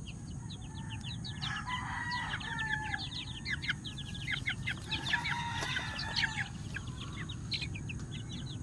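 Gamefowl roosters crowing, two longer calls about a second and a half and five seconds in, over a steady stream of quick, high chirps and a low, constant rumble.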